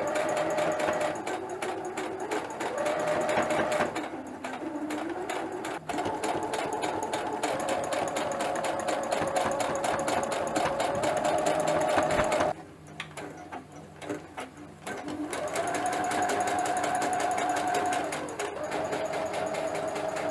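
Electric sewing machine stitching fabric in runs of rapid, even needle strokes, its motor tone shifting up and down with the sewing speed. About twelve seconds in it eases to a near stop for a couple of seconds, then starts stitching again.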